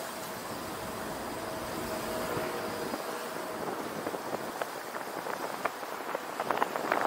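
Car driving on city streets: a steady haze of tyre and traffic noise, with a faint held tone in the first few seconds. From about four seconds in, short irregular ticks and taps join in and grow denser towards the end.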